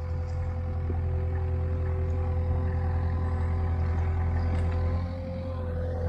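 Mustang skid steer's engine running steadily, a low drone with a steady higher whine over it, as the machine brings a tree over. The sound dips briefly about five seconds in.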